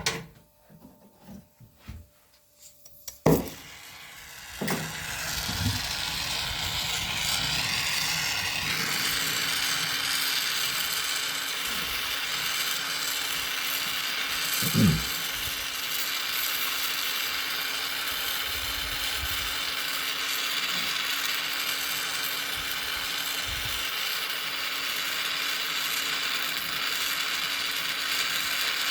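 Gas torch being lit and burning with a steady hiss, heating the bent tips of a stainless steel propeller. A few clicks and knocks come first, then a sharp click about three seconds in before the hiss starts; one knock sounds about halfway through.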